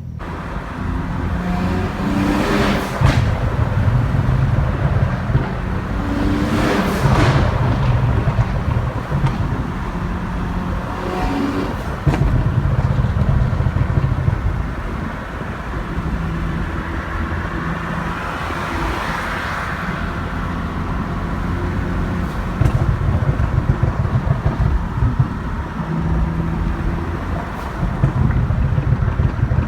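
BMW 335 engine and exhaust under way, rising and falling in pitch as the car accelerates and lets off, with a few short noisy swells along the way.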